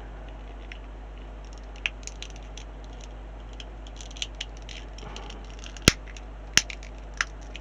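Hard plastic model kit parts being handled and pressed together: scattered light clicks and taps, with two sharper clicks near the end, over a steady low hum.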